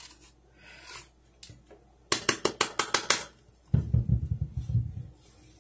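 A metal spoon scraping the seeds and stringy pulp out of a halved acorn squash: a quick run of about nine sharp scraping strokes about two seconds in, then a second and a half of low dull bumping.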